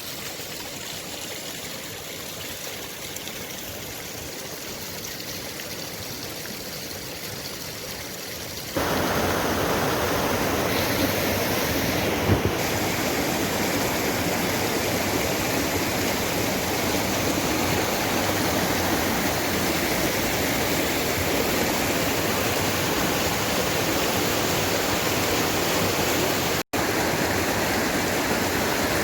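Maligne River's water rushing through the canyon: a steady, even rush of water. It becomes abruptly louder about nine seconds in and cuts out for an instant near the end.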